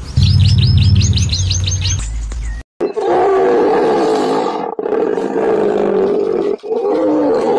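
A quick run of about eight high chirps over a loud low hum, which stops suddenly. Then, after a brief gap, a large animal's long, loud, wavering call follows, broken off briefly twice.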